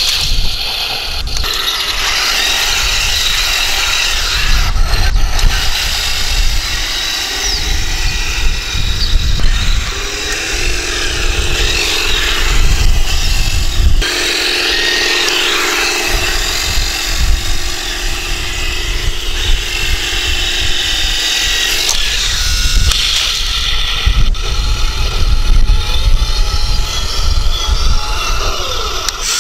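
Heng Long German Tiger 1 1:16 RC tank running, its small electric drive motors whining and changing pitch over a heavy low rumble. A steady hum holds for about twelve seconds in the middle.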